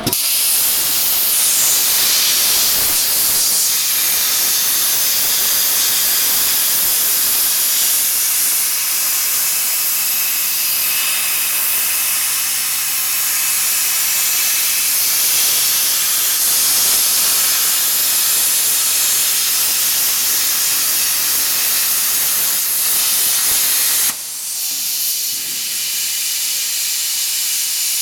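Plasma torch of a BDL 1530 CNC plasma cutting machine cutting steel plate: a loud, steady hiss of the plasma arc. Near the end the loud hiss cuts off suddenly and a softer hiss carries on.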